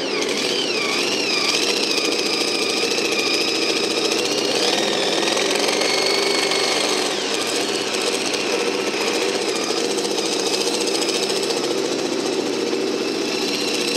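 John Deere diesel farm stock tractor running flat out under heavy load as it drags a weight-transfer pulling sled, a loud, steady engine note with a high whine above it that wavers in the first few seconds.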